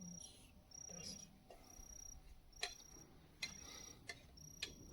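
Faint insect chirping: short high chirps repeating about once a second, with a few faint clicks between them.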